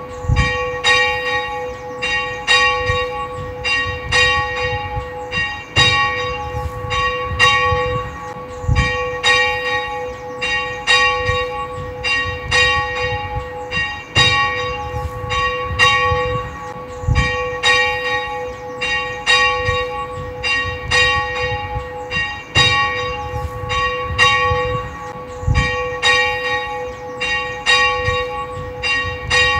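Church bells ringing: an even run of strikes, two to three a second, in a sequence that repeats every eight or nine seconds.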